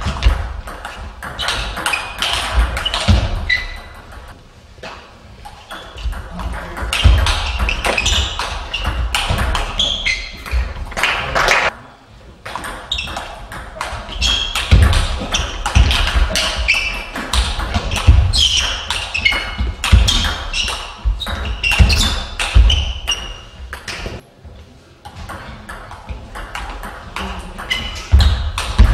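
Table tennis rallies: the celluloid ball clicks back and forth off bats and table in quick runs, with short breaks between points. Heavy thuds of the players' footwork on the hall floor come with the rallies.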